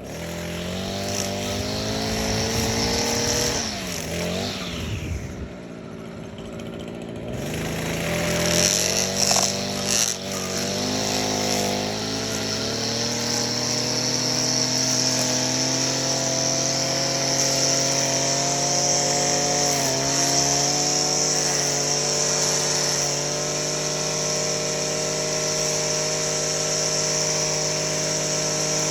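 Echo SRM-225 string trimmer's small two-stroke engine running. Its pitch wavers and dips in the first few seconds and drops off around six seconds in, then picks up again about eight seconds in and holds a steady high speed.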